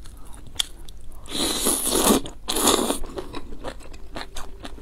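A person slurping glass noodles from a spicy stew: two long, loud slurps a little past a second in, with small wet chewing clicks around them.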